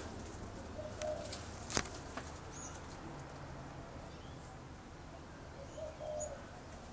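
A dove cooing faintly, two short calls about five seconds apart, with a single sharp knock a little before two seconds in.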